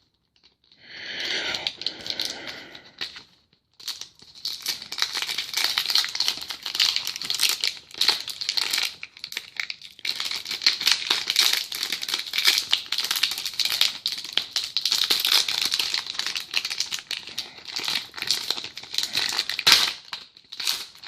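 Trading card pack wrapper being torn open and crinkled by hand: a short burst in the first few seconds, then busy, irregular crinkling and rustling for most of the rest.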